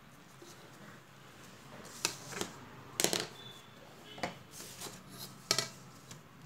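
Sheet of paper handled on a table and a plastic ruler laid across it: a few separate sharp rustles and taps, the loudest about three seconds in.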